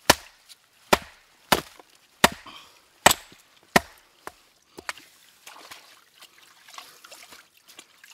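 Hammer striking a rounded rock, six sharp blows about two-thirds of a second apart, then a few lighter knocks: the rock is being broken open to look for a fossil inside.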